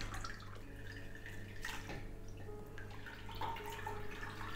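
A ladle scooping mashed, slow-cooked pear pulp and juice out of a slow cooker and pouring it into a cheesecloth-lined strainer: wet sloshing and dripping, with a few light knocks of the ladle.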